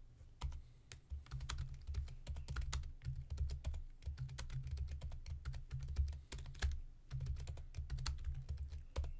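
Typing on a computer keyboard: a fast run of key clicks with a few brief pauses, the keystrokes carrying a dull low thud.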